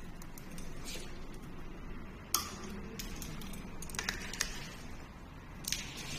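Several short, sharp clicks and metal clinks from hand tools, diagonal cutting pliers among them, handled against the metal e-bike frame.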